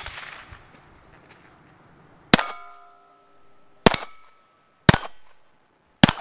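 A .22 rimfire pistol fires four sharp shots at steel plate targets, the first a little over two seconds in, then about one a second. After the first shots a hit steel plate rings on briefly with a clear tone.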